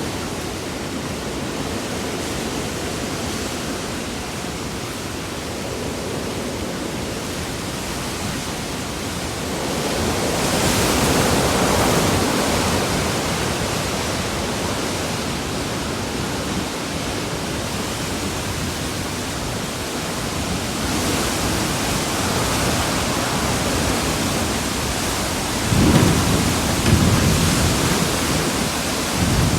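Hurricane-force wind and driving rain: a steady, loud rushing noise that swells in gusts, with two heavier gusts buffeting the microphone near the end.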